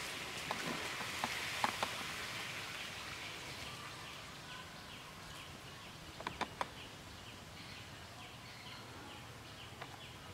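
Outdoor ambience: a steady hiss with a few sharp clicks. From about halfway, a quick series of short high chirps repeats about three times a second.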